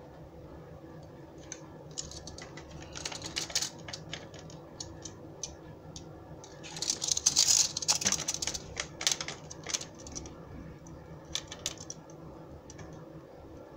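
Scattered light clicks and taps of a steel tape measure and fingers against a hard plastic toy as it is measured and turned over, with a denser run of clatter about seven seconds in.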